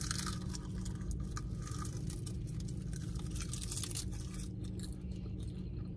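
Crackly tearing and crunching of paper-thin roasted Korean-style seaweed snack sheets being torn up and eaten, in short spells near the start and through the middle.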